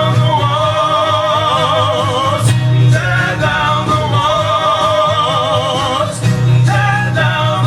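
Folk-gospel song by a male vocal duo: voices hold long notes with vibrato, in harmony over a steady low accompaniment. The chord changes twice, about two and a half seconds and six seconds in.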